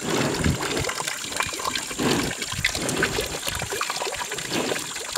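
Gir cows slurping and lapping whey from a concrete trough: wet, irregular liquid sounds.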